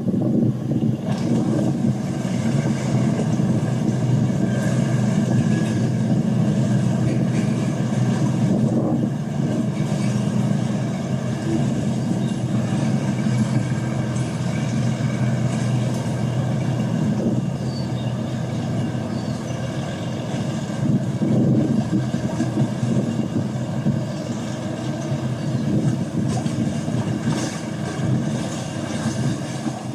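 A boat's engine running with a steady low drone, over a haze of wind and river-water noise.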